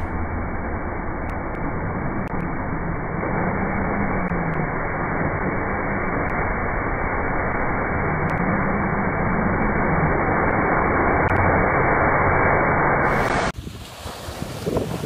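Strong wind and breaking surf with heavy wind buffeting on the microphone, sounding muffled. The noise builds steadily, then cuts off suddenly near the end.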